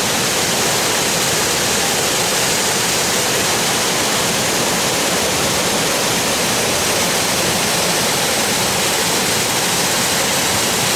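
Waterfall pouring down a rocky gorge into a plunge pool: a steady, unbroken rush of falling water.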